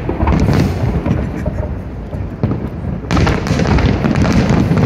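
Aerial fireworks going off in a string of booms and crackles, with a denser, louder volley starting about three seconds in.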